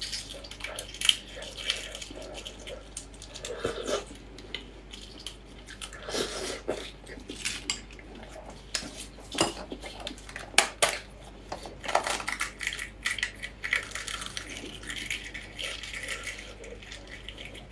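Spicy braised embryonated eggs (huozhuzi) being cracked and peeled with plastic-gloved fingers: irregular small crackling clicks of breaking shell, with a few sharper taps now and then.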